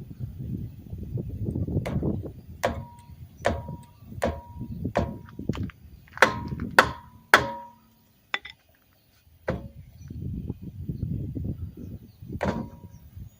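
Hammer blows on metal, about one a second, each leaving a short metallic ring; a few more blows later on, with low rumbling noise between them.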